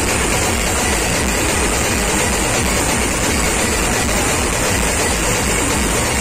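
Very loud band music from a large loudspeaker rig, overloading the recording into a dense, distorted rumble with a steady throbbing bass beat.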